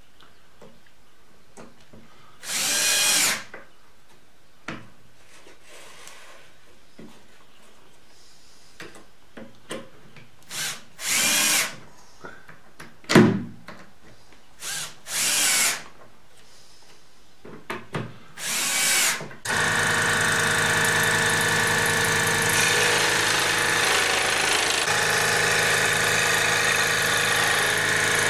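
A power drill whirring in several short bursts, each spinning up and stopping within about a second. About two-thirds of the way in, a steady machine with a fixed hum starts and keeps running.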